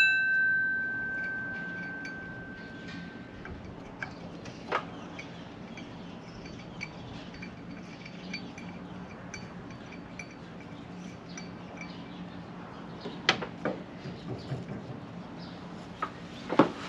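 A piece of combine drive metalwork rings after being struck, a clear bell-like tone dying away over the first few seconds. Then come scattered light metallic clicks and taps of hand work on the sprocket and chain, with a few louder knocks near the end, over a low steady hum.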